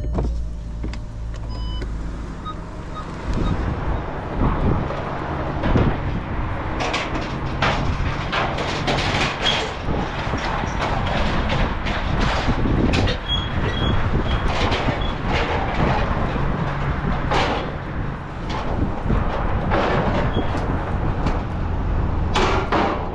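A vehicle engine running steadily at idle, with many irregular knocks, clicks and metallic rattles over it.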